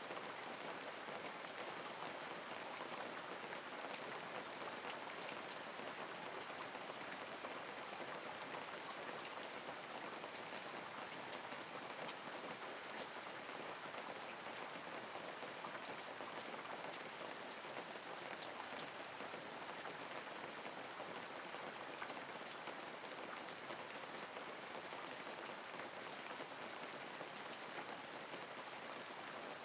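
Steady light rain falling, a constant hiss with many small drops pattering on surfaces.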